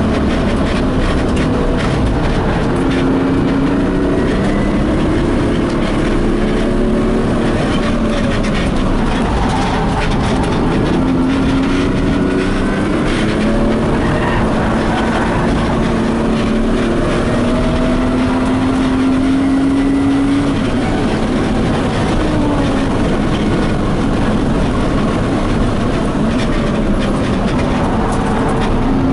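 BMW E36 coupe's engine heard from inside the cabin under hard track driving, its pitch climbing slowly under acceleration and dropping again at lifts and gear changes, over steady wind and road noise.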